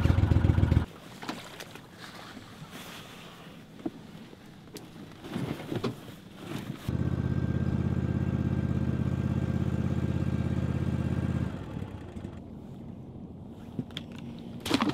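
A motor engine running steadily in two stretches, each cut off abruptly: briefly at the start, then again for about four and a half seconds in the middle. In between are faint, scattered knocks.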